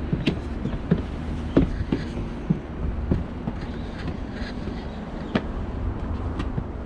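Footsteps on a wooden deck walkway: a run of irregular knocks and clatters over a steady low rumble.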